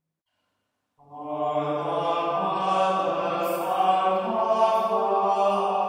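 Voices singing a slow chant in long held notes, coming in about a second in after a moment of silence.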